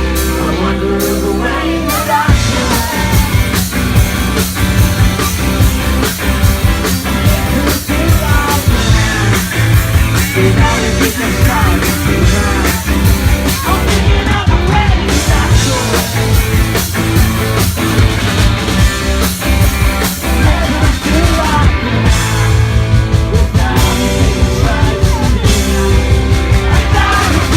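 Rock band playing live, with drums and a sung vocal over the full band.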